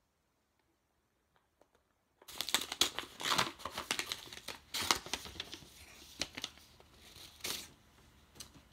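Silence for about two seconds, then a paper envelope being torn open and crinkled in the hands as a greeting card is worked out of it, in quick irregular rips and rustles.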